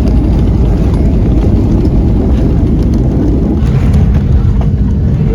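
Loud, steady low rumble of a Boeing 737 jet airliner's engines and airflow in flight or on the runway. The sound shifts slightly about four seconds in, where one flight clip gives way to another.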